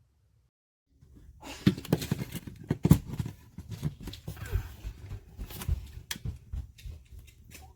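Irregular clicks, knocks and rustling of objects being handled, starting about a second and a half in.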